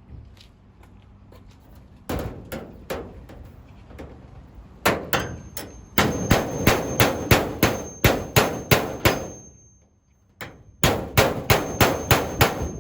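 Hammer striking repeatedly: a few scattered blows, then a fast run of strikes, a short pause, and a second fast run near the end.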